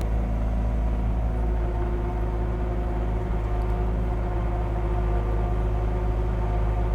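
Diesel engine of a Caterpillar 259D3 compact track loader running steadily at working speed while grading, a constant low drone with a steady whine over it; a higher tone grows stronger about a second in.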